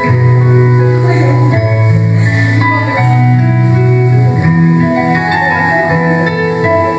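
Instrumental music: the introduction of the backing track for a children's doxology song, with sustained chords over a slow bass line whose note changes about every second and a half.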